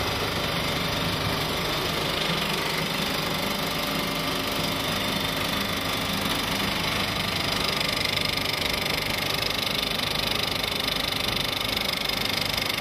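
Film projector running: a steady mechanical whirr with a fast, even clatter.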